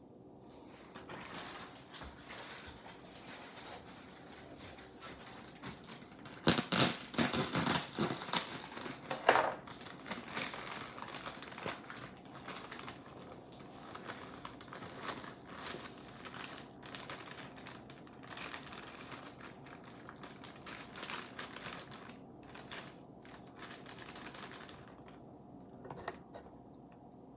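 Plastic bag of dry cake mix crinkling and rustling as it is handled and emptied into a glass mixing bowl. The rustling is loudest in a cluster of bursts about six to nine and a half seconds in.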